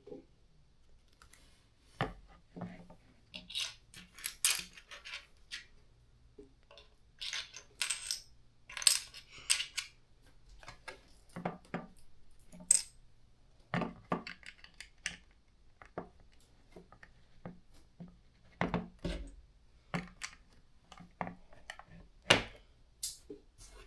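Plastic LEGO pieces clicking and rattling as they are handled and pressed together. The clicks come irregularly, with short pauses between groups.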